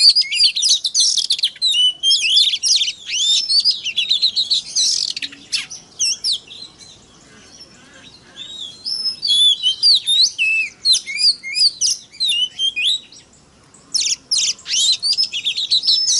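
Oriental magpie-robin (kacer) singing a fast, varied run of sweeping whistles and sharp chirps. The song thins out about midway, stops briefly near the end, then returns in a final burst.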